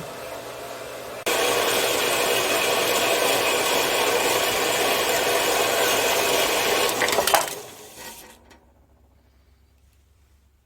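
Harbor Freight 4x6 metal-cutting bandsaw sawing through metal stock with a steady grinding whine for about six seconds. A clank near the end marks the cut finishing, and the saw then winds down to a stop.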